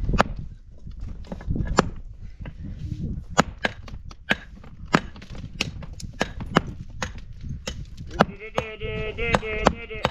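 Repeated sharp blows, about one to two a second, with low rumbling between them. They are typical of hand-tool work on stone or wood. Near the end a drawn-out, wavering call is heard over the blows for about two seconds.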